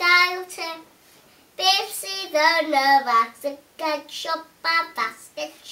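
A young girl singing: a held note, a short pause, then a phrase that slides down in pitch and a run of short, separate notes.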